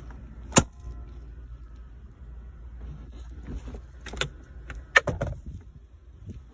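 Several sharp clicks and knocks, the loudest about half a second in, about four seconds in and around five seconds in, over a low steady hum.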